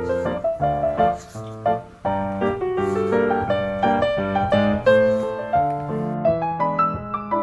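Background piano music: a light tune of short notes and chords.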